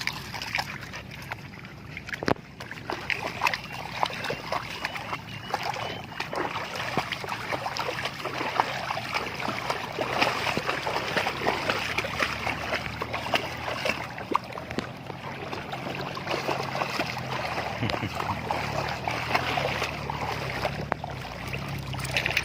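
Water splashing and sloshing continuously, with many small splashes, as something wades and swims in shallow water.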